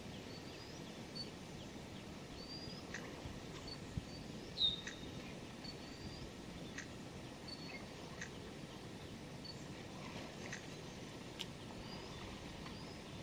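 A bird repeating short, high, rising chirps about once a second over a steady faint background hiss, with one louder call about four and a half seconds in.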